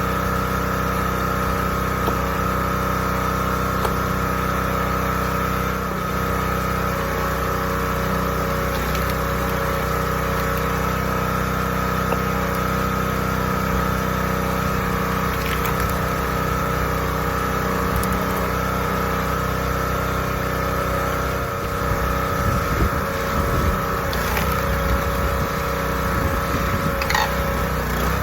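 The 212cc single-cylinder gas engine of a 20-ton log splitter running at a steady speed, driving the hydraulic pump. Wind buffets the microphone in the last several seconds.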